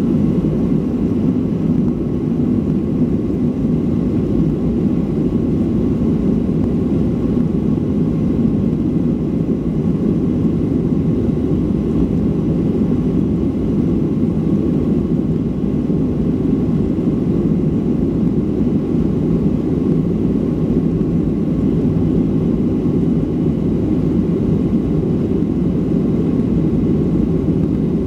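Cabin noise of a Boeing 737-500 climbing out just after takeoff: its CFM56-3 turbofans at climb power and the rushing air make a steady low roar, heard from a seat over the wing, with a faint steady whine above it.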